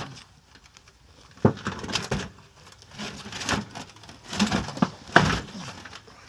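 Irregular knocks, bumps and scraping of a heavy old appliance being pushed and dragged out by hand.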